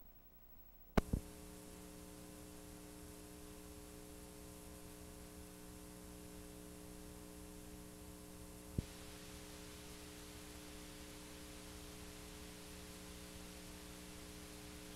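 Playback noise from the blank end of a videotape: a sharp click about a second in, then a steady electrical hum with hiss. A second click comes just before nine seconds in, after which the hiss grows louder.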